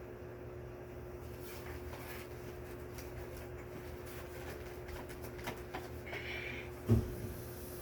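Handling noise from vacuum-cleaner parts being assembled: scattered light clicks and a brief scratchy rustle, then a single dull thump near the end.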